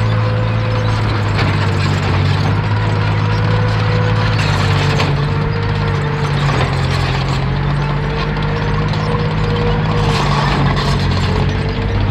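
FV4005 tank destroyer on a Centurion hull driving on its tracks: its Rolls-Royce Meteor V12 engine runs steadily under the clatter of the steel tracks, with a whine that wavers slightly in pitch.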